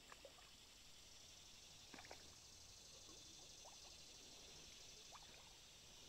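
Near silence: a faint steady high hiss, with a few soft, short clicks scattered through it.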